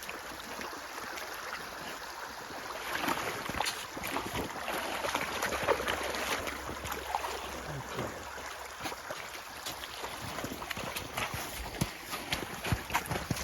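Flowing meltwater from rain and snowmelt, a steady rush, with irregular splashes and knocks throughout.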